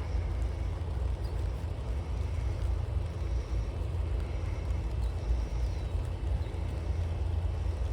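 Farm tractor engine running steadily in the field, a low continuous rumble.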